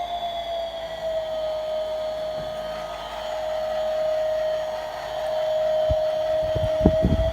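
Small electric motor of a toy biplane spinning its propeller: a steady whine that sags slightly in pitch and climbs again near the end. A few sharp knocks come in the last second or so.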